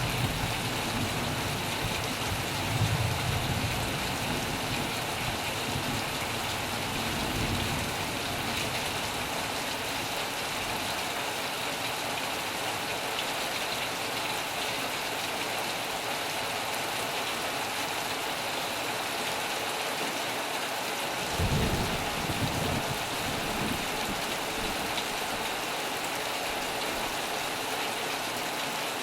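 Steady heavy rain, with low rumbles of thunder in the first few seconds and a sudden louder rumble of thunder about three-quarters of the way through.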